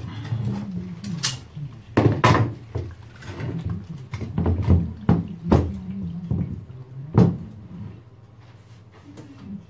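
Knocks and clunks of an old wall clock's metal movement in its frame being turned over, set down and handled on a wooden workbench. The loudest knocks come about two seconds in and again about seven seconds in.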